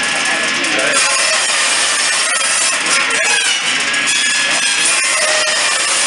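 Circular saw cutting briar root into tobacco-pipe blocks, a steady grinding whine as the wood is fed into the blade. Music and voices are mixed in.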